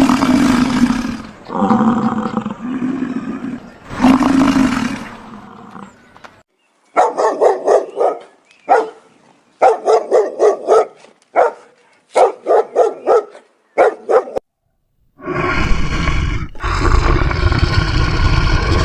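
A run of different animal calls: a few pitched calls, then groups of short, quick barks, then after a short pause a long, rough roar near the end.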